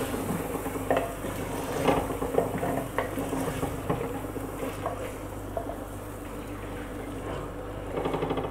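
Wooden spoon stirring chicken cubes frying in oil in a clay handi, knocking and scraping against the earthenware pot about once a second over a soft sizzle.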